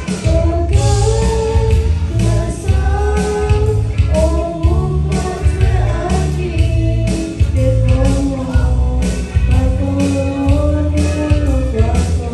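A man and a woman singing a gospel-style song into microphones, amplified through a PA, over instrumental accompaniment with a steady beat and heavy bass.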